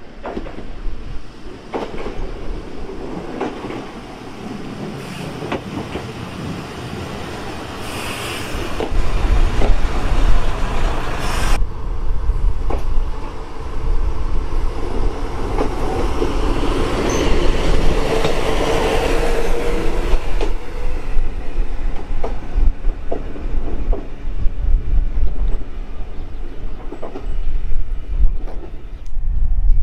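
Single-car diesel railcar of the Wakasa Railway running along the track, its wheels clicking over the rail joints. It grows louder, with a heavy rumble, from about nine seconds in, and a faint squeal slides past in the middle.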